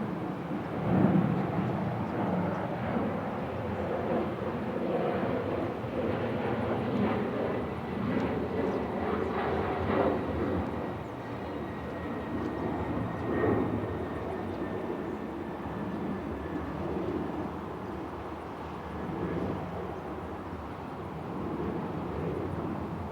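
Boeing 777 jet airliner coming in to land, its engines making a steady rumble with a high whine that glides slightly down through the middle, then easing off toward the end.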